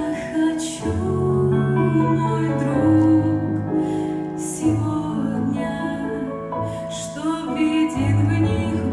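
A slow, gentle worship song: a woman singing held notes over keyboard and bass accompaniment.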